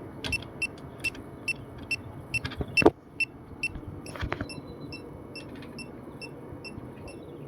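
Electronic refrigerant leak detector beeping, short high beeps at about three a second, the beeping rate set by how much gas the sensor picks up. A sharp click about three seconds in.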